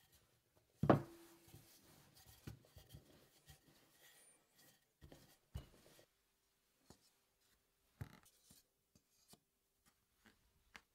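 Wooden rolling pin rolling gingerbread dough on a floured wooden tabletop: soft rubbing and scraping with a few short knocks, the loudest a sharp knock about a second in.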